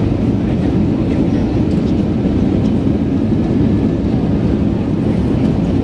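Steady low rumble inside the cabin of an Airbus A320 during landing, the noise of its engines and rushing air.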